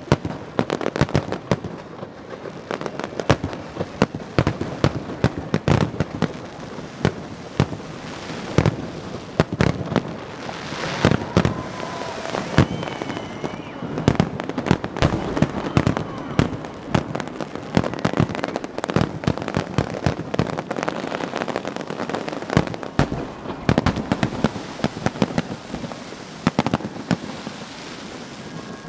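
Fireworks display in its finale: a dense, continuous barrage of shell bursts and crackling reports, many bangs a second with no pause.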